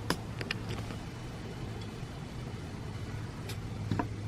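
Steady low hum with a few faint light clicks early on and a short knock near the end, as metal parts are handled.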